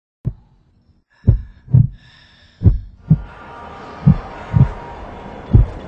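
Heartbeat sound effect: deep double thumps, about one pair a second, starting about a second in. A hiss swells underneath them from about three seconds in.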